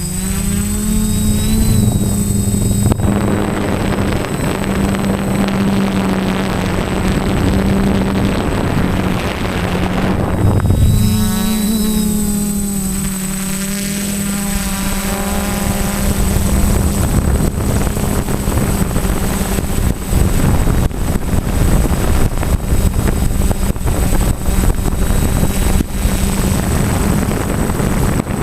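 Quadcopter's electric motors and propellers whining, the pitch rising and falling as the throttle changes, with a rushing noise that comes and goes.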